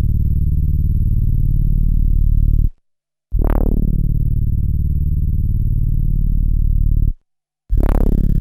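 Low synth note played back from a 12-bit SP1200 sampler, triggered again and again. Each note opens bright and quickly darkens, holds about four seconds, then cuts off abruptly, with a short silence before the next. A faint high whine rides on each note.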